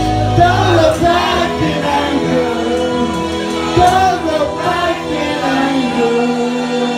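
A man singing a song into a microphone over instrumental accompaniment.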